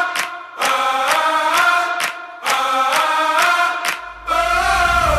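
Music: sung, chant-like vocal phrases with short breaks between them over a light ticking beat, with a deep bass coming in about four seconds in.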